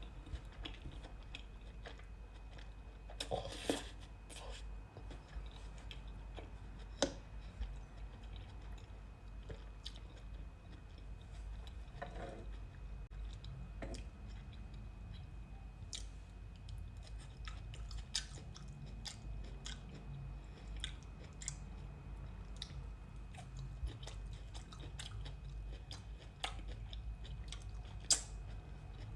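A person chewing and slurping spicy instant noodles close to the microphone, with small wet mouth clicks and a few louder crunchy bites.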